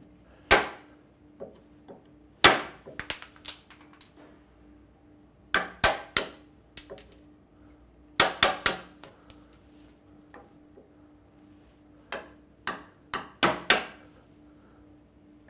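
Wood chisel being struck to chop waste out of a notch in a timber post: sharp knocks in short clusters of a few blows, with pauses of a second or two between.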